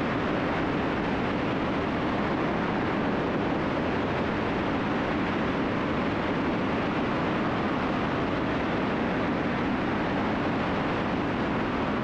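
Steady drone of a Cessna T310R's twin engines and propellers, with airflow noise, heard inside the cabin in flight.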